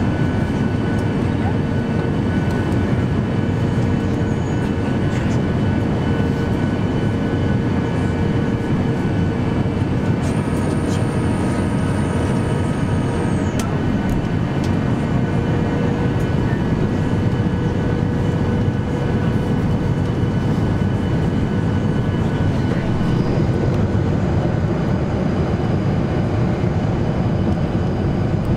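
Steady cabin noise of a Boeing 737-800 airliner in flight on descent: the engines and the rush of air over the fuselage make a constant rumble with a few faint steady hums. A faint high whine comes in for about three seconds, about ten seconds in.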